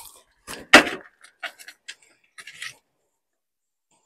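Camping gear being handled: a sharp knock about three quarters of a second in, then a few light clicks and clatters over the next two seconds.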